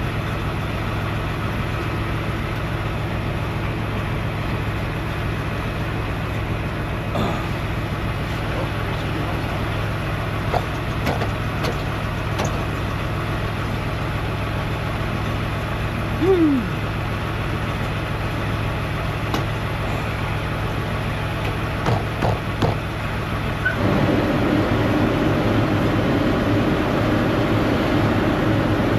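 Steady idling of a heavy diesel truck engine, with scattered light metallic clicks and a short falling squeak partway through. A louder rumble joins about 24 seconds in and continues.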